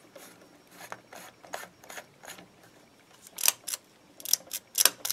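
A light bulb being screwed into the socket of a pull-chain ceiling fixture. Its screw base scrapes and grinds in the socket threads in a series of short strokes, louder toward the end.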